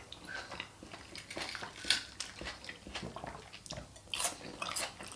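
Close-miked chewing of fresh Greek salad, crisp vegetables crunching in the mouth, with a few sharp clicks of a metal fork against the plate; the sharpest click comes about two seconds in.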